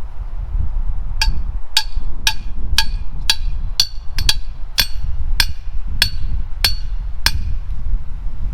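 A hammer striking a stainless steel sign post to drive it into the ground, about a dozen ringing metallic blows at roughly two a second that stop about a second before the end.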